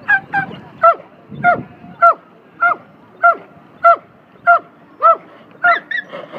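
Dog barking in a steady run of short, pitched barks, a little under two a second.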